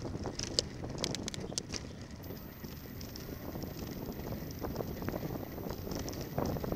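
A bicycle being ridden on a rough road: steady tyre and road rumble with wind buffeting the microphone. A quick cluster of sharp rattling clicks comes about a second in, and a few more knocks follow later as the bike goes over bumps.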